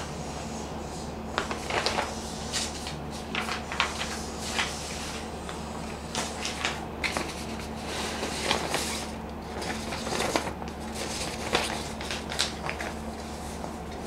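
Irregular rustles and small clicks of something being handled by hand, such as papers, over a steady low electrical hum.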